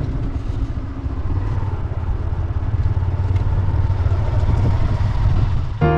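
Motorcycle riding along a dirt track: a steady engine note under a heavy low rumble. Piano music comes in right at the end.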